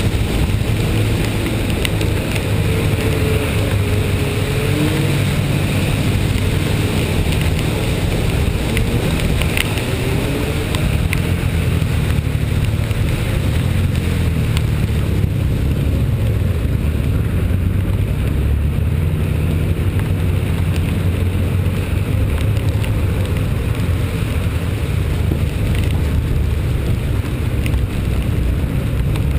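A vehicle driving in the rain: a steady low engine hum whose pitch drifts up and down, over an even hiss of wet road and rain noise.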